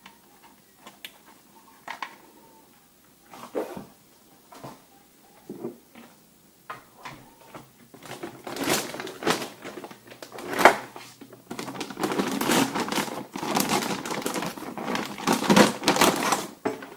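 Packaging being handled and unwrapped: a few scattered clicks and knocks at first, then from about eight seconds in, busy rustling and crinkling of wrapping material.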